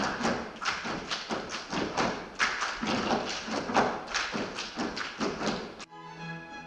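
Quick, irregular thumps and taps on a wooden stage floor, several a second, made by dancers' feet and bodies striking the boards. About six seconds in they stop abruptly and music with violin starts.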